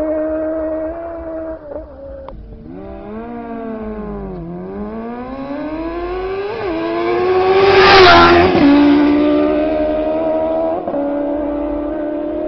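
Motorcycles racing flat out toward the listener. The engine note climbs in pitch with a gear change along the way, becomes loudest about eight seconds in as they pass close by, then drops suddenly in pitch and settles lower as they pull away.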